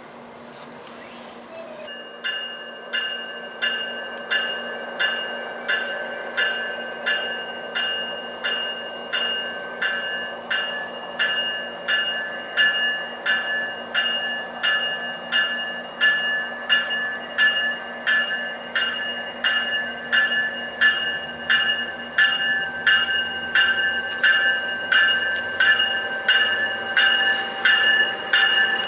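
MARC multilevel cab car's warning bell ringing steadily, about one and a half strikes a second, as the push-pull train pulls out, over the low hum of the train. The bell starts about two seconds in and grows louder as the cab car comes closer.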